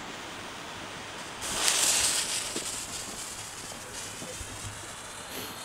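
Firework rocket, a Nico ring rocket, launching: a brief loud whoosh about a second and a half in, fading to a steady faint hiss.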